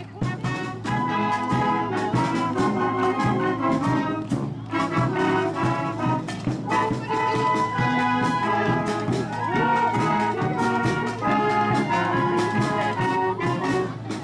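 A high school wind band playing live, with trumpets and trombones carrying full held chords over frequent sharp percussive hits.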